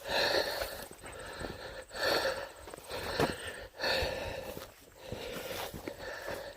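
A man breathing hard while climbing a steep trail, with a loud, wheezing breath about every two seconds and footsteps on the path between them.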